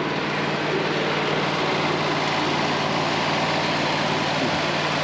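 Wood-Mizer LT40 sawmill's diesel engine idling steadily, warming up after a cold start in freezing temperatures.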